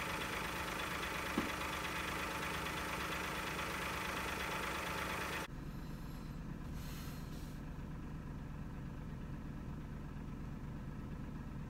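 Vehicle engine idling, heard from inside the cabin, under a steady rushing hiss. About five seconds in the hiss cuts off, leaving a lower, quieter hum.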